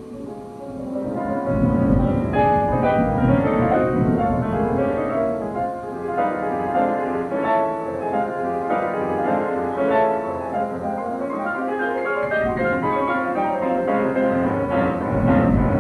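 Background music led by piano, a continuous run of notes.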